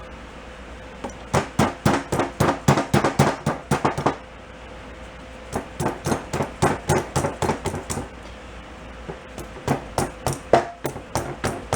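Rapid hammer blows, about six a second in three runs, driving a stuck part off a seized Honda Cub 50 engine during teardown.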